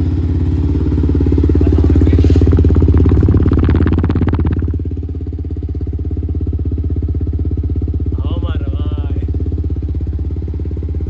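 Yamaha MT-15's 155 cc single-cylinder engine running through an aftermarket full-system exhaust, sounding strong. It runs harder and louder for a few seconds, then drops back to a steady idle about five seconds in.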